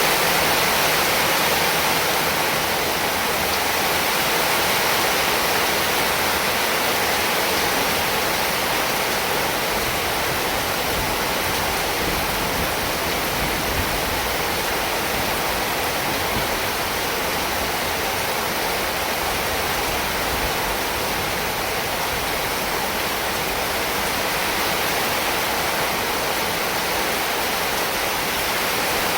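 Heavy rain falling steadily, a dense, even hiss of water with no single drops or gusts standing out.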